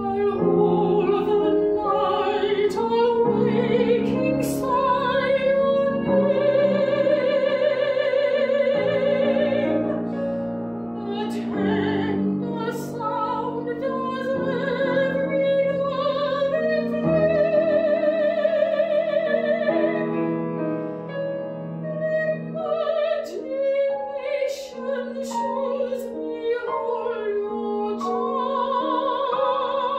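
A female classical singer sings an art song with piano accompaniment. She holds long, high notes with a wide vibrato over sustained piano chords.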